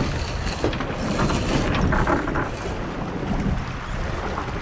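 Wind buffeting the microphone aboard an Impulse 26 sailboat under sail, with the wash of water along the hull; a steady rushing noise.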